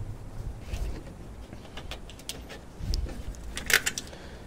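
Light metallic clicks and clinks of hands working a battery cable terminal and its clamp hardware into place, with one louder clink late on.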